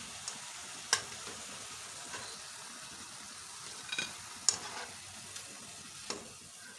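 Potato-and-onion pakoras sizzling steadily as they deep-fry in hot oil in a wok. A few light clinks of a wire spider strainer against the pan come as the pakoras are turned and lifted out.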